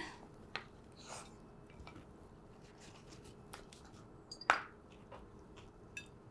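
Quiet room with a few faint clicks and taps, and one sharper tap with a brief high ring about four and a half seconds in.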